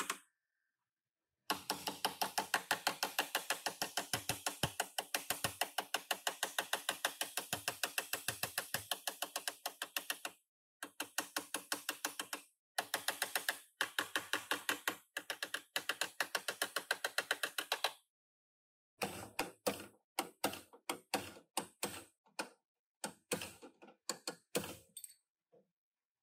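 Hammer blows on the car's bent rear body and frame metal: long runs of rapid, evenly spaced metallic strikes, several a second, stopping and restarting, then slower, more irregular strikes in the last third.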